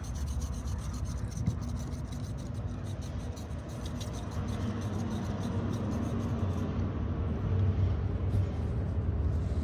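Hand seam roller rubbing along a freshly glued canvas seam, pressing the stove jack patch down onto the tent fabric. Under it runs a steady low rumble that grows louder near the end.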